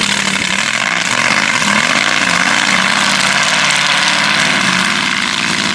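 Mega truck's engine running hard over dirt hills, a loud steady roar whose pitch rises and falls as the throttle is worked.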